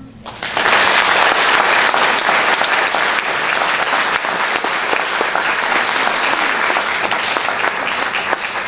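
Audience applauding a piano recital performance. The clapping starts about half a second in, just as the last piano note dies away, and carries on steadily, easing a little near the end.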